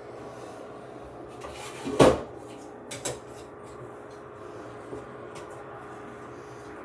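Kitchen knocks: one sharp, loud knock about two seconds in, then two lighter knocks about a second later, over a steady low hum.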